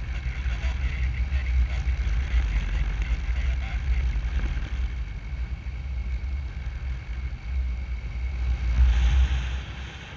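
Wind rushing over the microphone in flight under a paraglider: a steady low buffeting rumble with a hiss above it, swelling to its loudest about nine seconds in and easing off just before the end.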